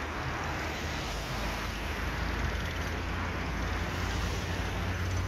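Steady outdoor traffic noise, with a low engine hum that grows louder near the end.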